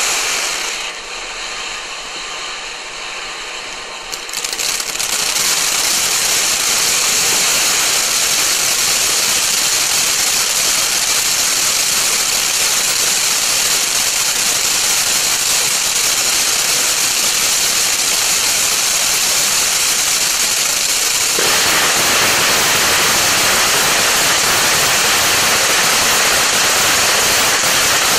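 Ground fountain firework spraying sparks with a loud, steady hiss. It grows louder about four seconds in, and about three quarters of the way through the sound turns thinner and higher.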